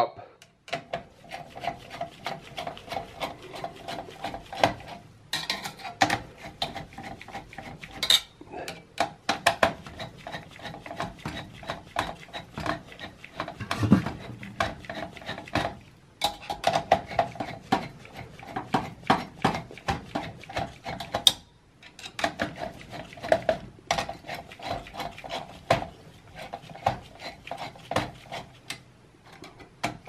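A Phillips screwdriver working loose the four retaining screws of a workstation's CPU heatsink: a steady run of small metallic clicks and scrapes as the bit turns in the screw heads, with a few short pauses between screws.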